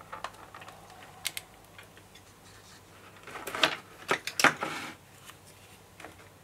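Clear plastic packaging tray crackling and clicking as it is handled and a model locomotive is pulled out of it, with a few light clicks at first and a burst of crinkling from about three to five seconds in.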